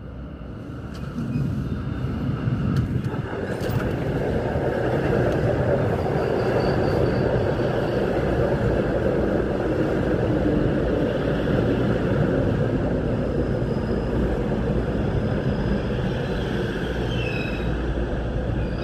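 Busan Metro Line 1 subway train pulling into an underground station. A rumble swells as it approaches, with a couple of sharp clicks about three seconds in, then a steady rolling noise of wheels on rail as the cars pass. A high squeal from the brakes comes in near the end as it slows.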